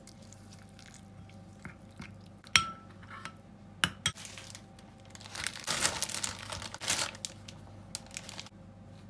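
Kitchen handling sounds: a sharp ringing clink of dishware about two and a half seconds in and a knock a little over a second later, then about two seconds of crinkling, like plastic packaging being handled. A faint steady low hum runs underneath.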